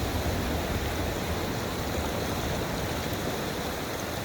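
Steady rush of a fast-flowing river running high with spring runoff.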